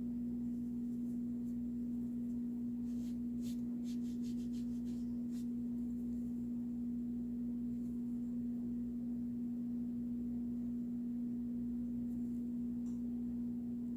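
A steady low hum, one unchanging tone, with a few faint light clicks about three to five seconds in.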